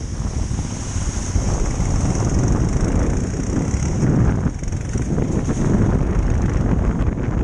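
Wind buffeting the microphone over a motorcycle engine running as the bike rides a rough dirt track, a steady low rumble throughout.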